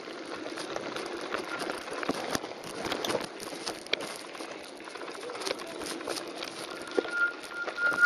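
Bicycle rolling downhill over a loose gravel creek bed: tyres crunching on the grit, with the bike rattling and knocking over bumps. A thin high squeal comes in a few times near the end.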